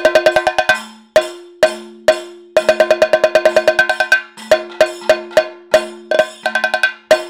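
Kathakali bell-metal percussion, the chengila gong with elathalam cymbals, beating the dance rhythm. Fast runs of ringing metal strikes alternate with single strokes about half a second apart.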